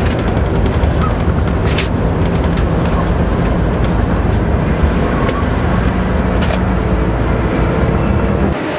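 Steady low engine and road rumble heard inside the cabin of a large vehicle driving along a highway, with a few faint clicks. It cuts off abruptly just before the end.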